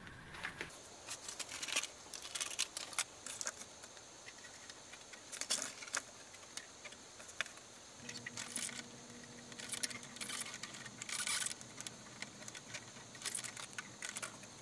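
Scattered light clicks and paper rustles as small paper cut-outs are handled and fed into a hand-cranked Xyron Create-a-Sticker machine.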